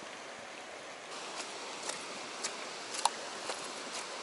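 Footsteps on dry fallen leaves, about two steps a second, starting about a second in, with one sharper crack about three seconds in, over a steady hiss of flowing water.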